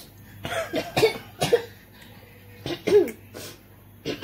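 A person coughing in two short fits of sharp coughs, one about half a second in and another near three seconds, set off by the chili heat of 2x spicy fire noodles.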